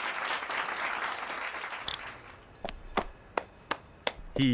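Cartoon crowd applauding and cheering, fading out about two seconds in. Then a brief high burst and a run of six sharp clicks, about three a second.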